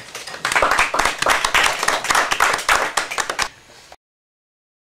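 Audience applauding: dense hand clapping that swells up about half a second in, fades after about three seconds, and cuts off abruptly near the end.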